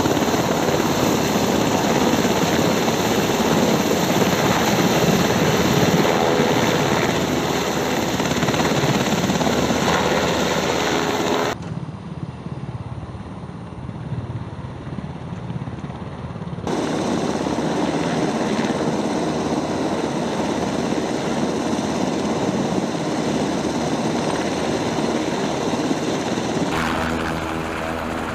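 Sikorsky UH-60 Black Hawk helicopters running close by, the thrum of the four-blade main rotor over the whine of the twin turbine engines as the aircraft hover low. The sound changes abruptly three times, with a duller, quieter stretch a little before the middle.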